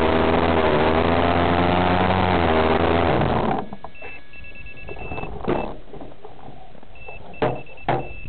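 Small engine of a radio-controlled model airplane, heard through its onboard camera, idling with a slightly wavering pitch, then cut off suddenly about three and a half seconds in. After that come short high electronic beeps in two runs, and a few sharp knocks as the plane is handled.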